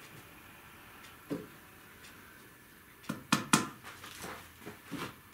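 Upholsterer's tack hammer (ramponneau) driving upholstery tacks through burlap into the seat frame: a single tap about a second in, then a quick run of sharp taps and a few lighter ones from about three seconds in.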